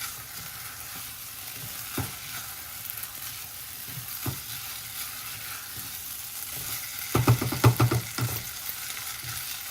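Washed basmati rice frying in melted butter in a pan with a steady sizzle while it is stirred. The utensil knocks against the pan now and then, and a quick run of knocks and scrapes a little after seven seconds in is the loudest part.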